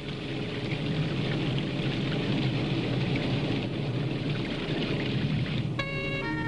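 Steady hiss of rain. Near the end, music with sustained notes changing in steps comes in.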